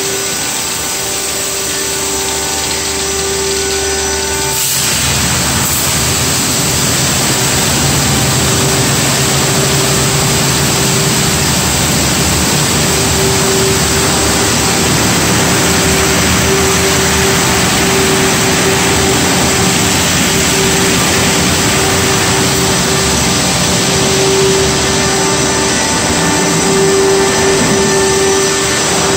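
Automatic tunnel car wash running: spinning brushes scrubbing a pickup truck, with water spraying and a steady machinery hum. A loud rushing wash noise starts suddenly about four and a half seconds in and then holds steady.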